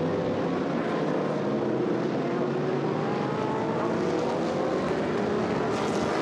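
A tightly bunched pack of GT3 race cars, among them Mercedes SLS AMG, Ferrari 458 Italia, McLaren MP4-12C and Audi R8 LMS Ultra, running together. Several engines overlap at once, their pitches slowly rising as the cars accelerate.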